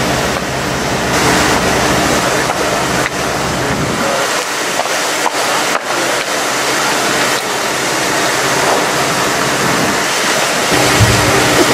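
Loud, steady rushing of fire-hose water jets, with the low drone of a fire engine running in the first few seconds and again near the end.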